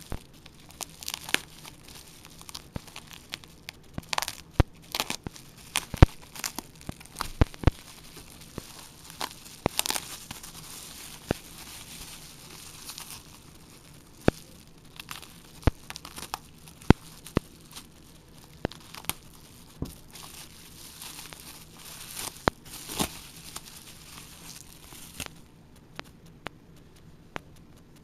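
Packaging crinkling and tearing as it is handled and opened, with many sharp clicks and knocks. The crinkling dies away near the end, leaving scattered clicks.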